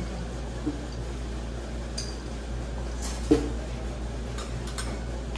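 A few light clinks and knocks of glassware, metal curry bowls and cutlery on a table, the loudest a bit over three seconds in, over a steady low hum.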